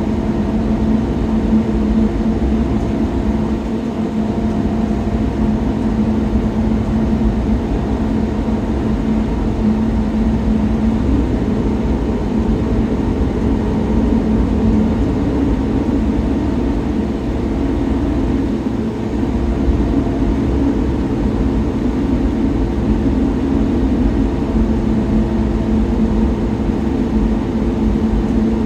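Inside a coach bus cruising at highway speed: a steady engine and drivetrain drone with several held tones over a low road rumble.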